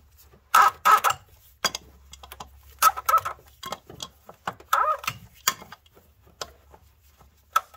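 An adjustable wrench working on the oil filter housing of a 3.6 L V6: a run of irregular sharp clicks and short squeaky creaks as the wrench grips and slips on the housing's cap.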